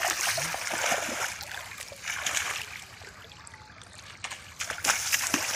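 Bare feet running and wading through shallow muddy water, splashing: heavy splashing for the first couple of seconds, a quieter stretch, then sharp splashes again near the end.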